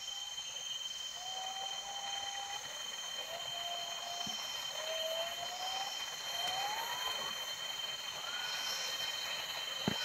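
A green pigeon (punai) giving a string of long, gently rising whistled notes, the later ones climbing higher, over a steady high insect drone. A single sharp click comes near the end.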